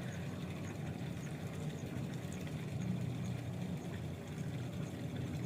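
A steady low motor-like hum, with faint high ticks about three times a second.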